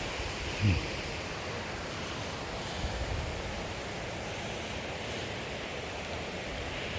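Steady rush of flowing river water, with a short low sound falling in pitch about half a second in.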